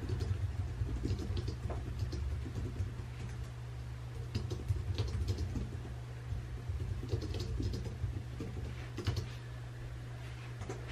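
Light taps and clicks of hands working at a desk, coming in short clusters over a steady low hum.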